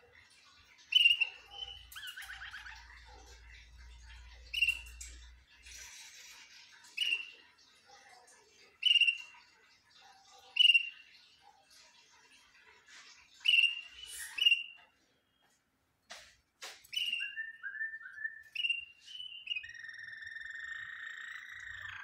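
Domestic canary calling: short, loud chirps every second or two, then near the end a few quick lower notes and one held lower note.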